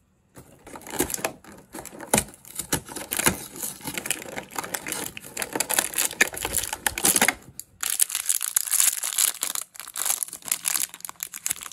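Hands pressing and punching open a perforated cardboard door on a toy countdown calendar, with scraping and snapping cardboard and dense clicks. After a brief pause about three-quarters of the way through, a foil blind bag crinkles as it is handled and torn open.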